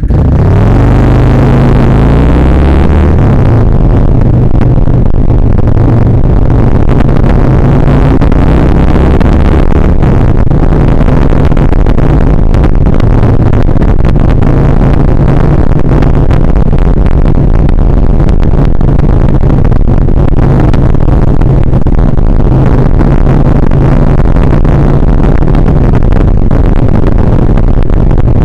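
Kawasaki Vulcan 1600 Nomad's V-twin engine pulling away, rising in pitch over the first three seconds, then running steadily at road speed. Heavy wind rush on the microphone is loud throughout.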